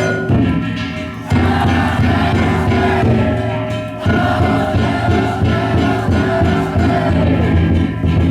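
Danjiri festival music: a large taiko drum beating with hand gongs (kane) ringing steadily over it, and the voices of a crowd chanting along. The drum strikes come in with sudden loud surges at a few points.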